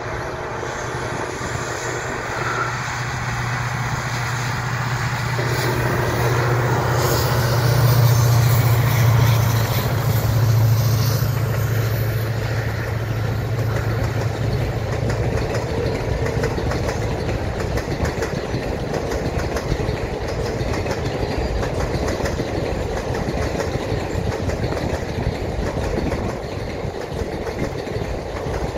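Diesel-hauled Hazrat Nizamuddin–Vasco Goa Superfast Express passing: the locomotive's low engine hum grows to its loudest about eight to eleven seconds in, then fades by about sixteen seconds. After that comes the steady noise of the passenger coaches rolling by, with wheels clattering over the rail joints.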